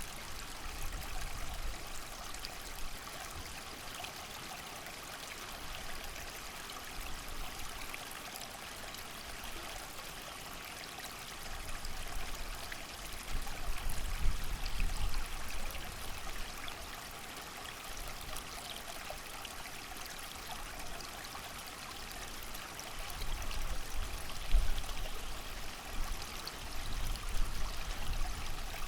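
A creek running steadily, with rain and wind. The wind gusts up about halfway through and again near the end.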